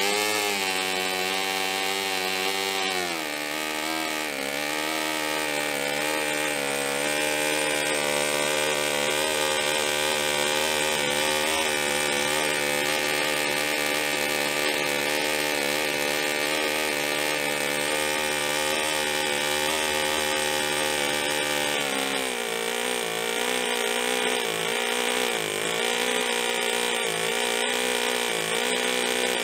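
SEMTO ST-NF2 model two-cylinder four-stroke engine running just after starting. The revs sag a few seconds in, then hold steady, and about two-thirds of the way through they drop to a lower, unsteady speed.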